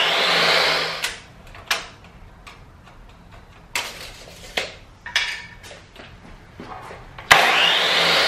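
Electric miter saw cutting a 1x2 board: the blade spins and cuts through, dying down about a second in. A few short clicks and knocks follow as the board is handled, then the saw starts and cuts again near the end.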